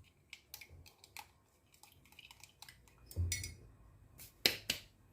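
A small spoon tapping and scraping against a glass as cloves are tipped into lemon juice. A run of light clicks is followed by a duller knock, then two sharper clinks close together near the end.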